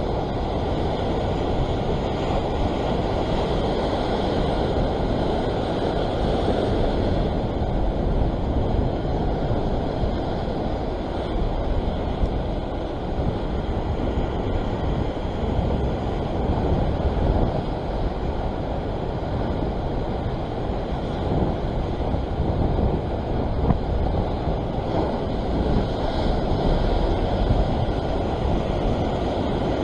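Ocean surf churning and washing steadily in whitewater, mixed with wind noise on the microphone.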